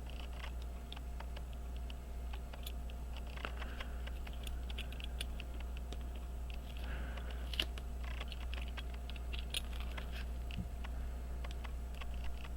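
Scattered faint clicks and taps of small tools handling parts on a workbench, over a steady low hum.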